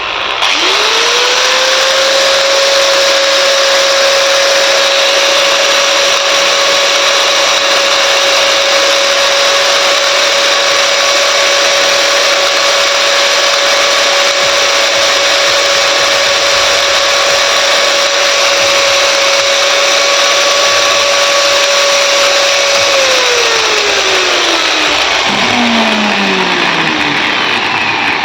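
Bosch GWS 600 angle grinder switched on, spinning up quickly to a steady whine with a rough noise, running for about twenty seconds, then switched off and winding down with falling pitch. The abnormal noise comes from the gear head, where the repairer finds a damaged non-genuine gear; the motor is not overheating.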